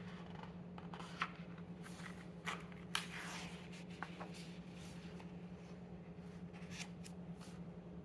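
Paper pages of an old catalog being handled and turned: a few short taps and rustles, then a longer soft rustle of a page turning about three seconds in, over a steady low hum.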